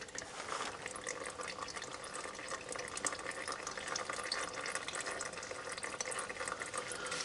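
Engine oil trickling and dripping out of a loosened oil filter into a plastic canister: a steady splashing trickle dotted with many small drips.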